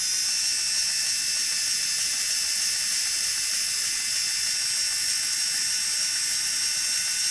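SKIL 4V cordless powered screwdriver running in reverse (loosening) at about 200 RPM, a steady high-pitched motor whine at an even pitch.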